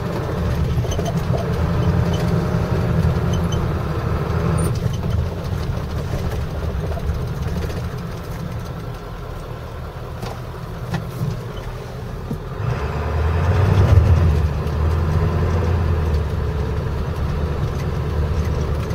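1996 Ford F-250's 7.3-litre Power Stroke turbo diesel V8 running as the truck is driven slowly, heard from inside the cab: a steady low drone that grows louder for a few seconds about two-thirds of the way through.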